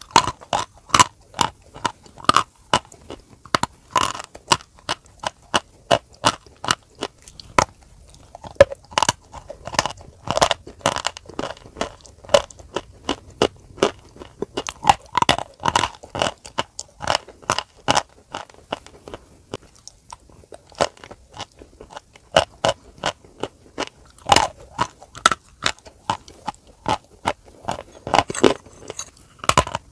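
Close-miked biting and chewing of crumbly white chalk-clay chunks: a steady run of sharp, crisp crunches, about two to three a second, thinning briefly a couple of times.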